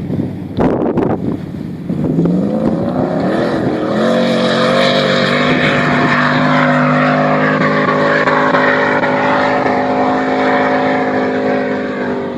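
Four-wheel-drive vehicle's engine revving up over about two seconds, then held at steady high revs under full throttle, easing off near the end. Rough rushing noise, likely wind, comes before the engine picks up.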